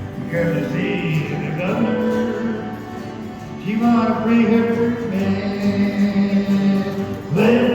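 Background song: a man singing long, held notes over instrumental accompaniment, with new phrases about halfway through and near the end.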